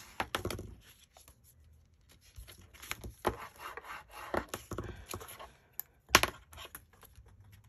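A bone folder rubbing and scraping over glued paper in short irregular strokes, burnishing it down so it adheres. There is one sharp tap a little after six seconds in.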